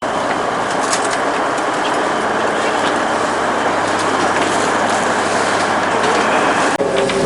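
Steady rushing noise of a charter fishing boat under way: engine, wind and water. It drops out for an instant near the end.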